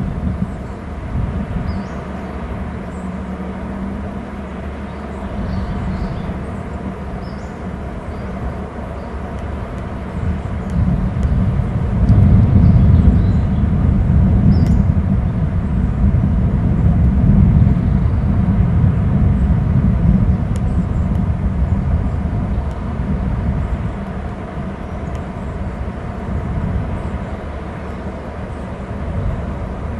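Wind rumbling on an outdoor camera microphone, a steady low roar that swells louder for several seconds in the middle, with faint high chirps scattered over it.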